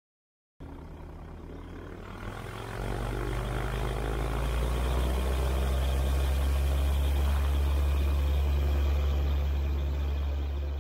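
Single-engine light aircraft's engine and propeller, coming up to full power about three seconds in and then holding a steady, loud drone on the takeoff roll.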